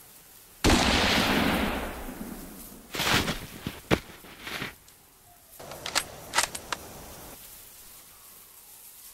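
A single loud gunshot sound effect that rings out and dies away over about a second and a half, followed by scattered sharp clicks and knocks.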